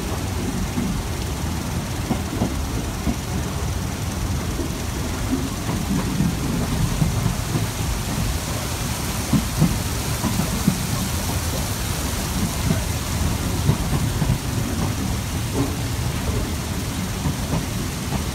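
Passenger train running, heard from inside the carriage: a steady low rumble of the wheels on the rails with a hiss over it, and irregular knocks and clatter through the middle stretch.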